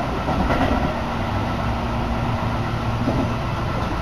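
Electric commuter train running, heard from inside the carriage: a steady rumble of wheels and running gear, with a low steady hum through most of it.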